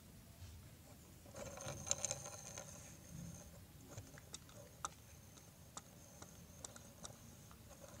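Faint scattered clicks and taps of plastic toys being handled, with a brief squeaky, higher-pitched sound between about one and a half and three and a half seconds in.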